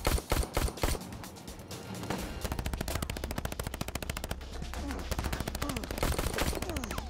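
Gunfire in a shootout: a few loud, separate pistol shots in the first second, then from about two seconds in a long, rapid string of shots, about ten a second, over a steady low rumble.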